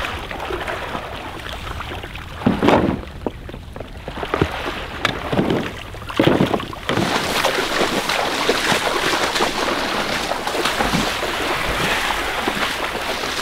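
Splashing of people wading through shallow marsh water, with several hollow knocks and thumps as plastic duck decoys are tossed into a small boat. In the second half it turns to a steadier rushing noise.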